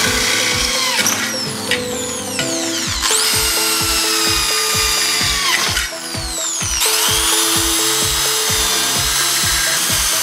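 Electric hand drill running and boring through a metal angle with a sharpened twist bit, in two long cuts with a short break about six seconds in; its motor whine falls in pitch as the bit bites. Background music with a steady beat plays under it.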